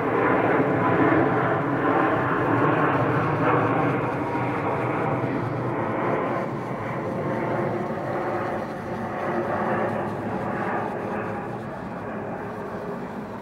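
Aircraft passing overhead, a steady engine roar that slowly fades away.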